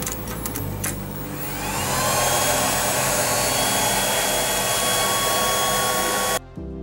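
A few clicks, then an electric air blower on a laser engraver setup runs with a loud rush of air; its whine rises over about half a second to a steady pitch and holds there. The sound cuts off abruptly near the end.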